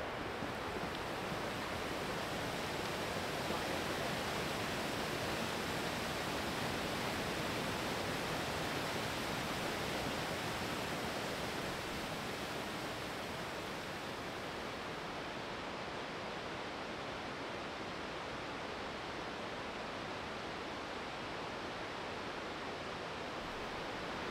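Water rushing steadily, an even unbroken noise with no separate events.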